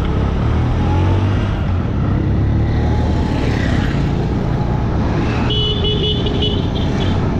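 Motorcycle engine running steadily at riding speed, with wind and road noise. A horn sounds for about a second, a little past halfway through.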